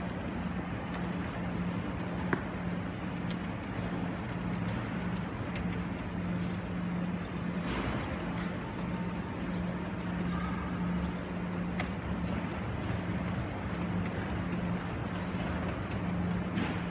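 LGB garden-scale model train running on the layout: a steady low motor hum that comes and goes, with wheel rumble on the track and a few light clicks.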